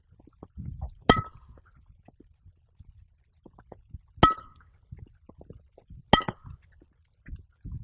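Tennis balls struck on the volley with a Sweet Spotter narrow-headed training racket: three sharp hits about three seconds apart, each with a brief ringing clang. Fainter knocks fall between them.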